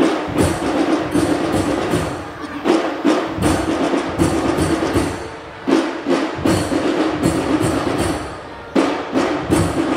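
Percussion-heavy music: fast, sharp drum strikes over a steady low tone, in phrases that fade and then restart with a loud hit about every three seconds.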